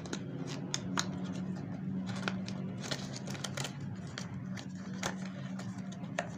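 Hands opening and handling a small microphone's retail packaging: scattered clicks, taps and rustles, over a steady low hum.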